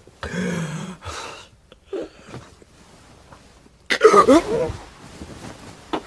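A man's fit of coughing and wheezing gasps in short spasms, then a sudden loud strained cry about four seconds in.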